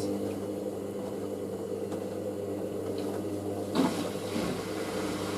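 Washing machine drain pump running with a steady hum as water is pumped out of the drum before the final spin, with a short louder swish about four seconds in. It runs smoothly without chugging, the drain hose being mounted high.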